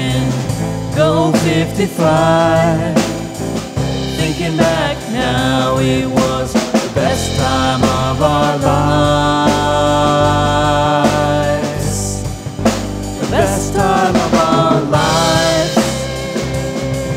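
Full-band rock song with drum kit, bass guitar and electric guitar, under a lead melody that slides between notes and holds some long notes.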